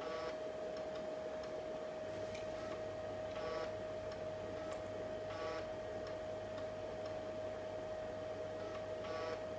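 3.5-inch floppy drive reading a DOS 6.22 installation disk, with several short buzzing bursts as the head steps and reads. Under it runs a steady high-pitched whine, and a low hum comes in about two seconds in.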